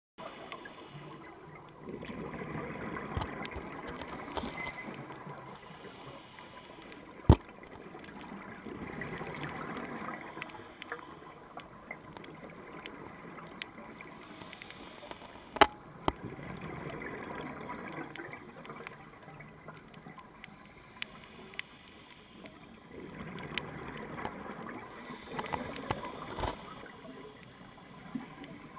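Scuba diver's regulator exhalations heard underwater: a burst of gurgling bubbles about every seven seconds, four in all, over a low hiss. Two sharp clicks are the loudest sounds.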